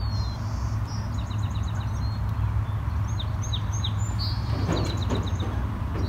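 Steady wind rumble on the microphone, with small birds chirping in short high notes; a brief rustling noise about five seconds in.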